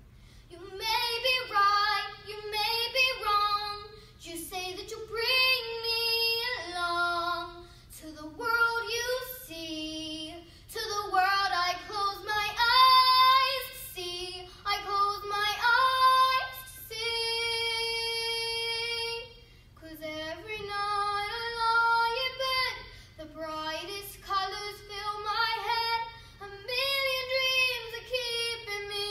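A young girl singing solo and unaccompanied, in phrases broken by short breaths, with one long held note about two-thirds of the way through.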